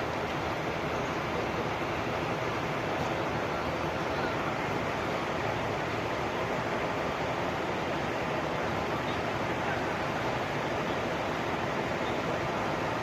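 Steady, even rushing noise of a moving vehicle and road, with no horn tones.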